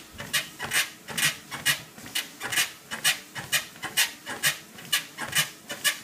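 Sole F63 treadmill frame squeaking sharply with each footstep on the deck, about two squeaks a second. The owner traces the squeak to the frame near the motor-end corner, and oil, tape and tightening have not cured it.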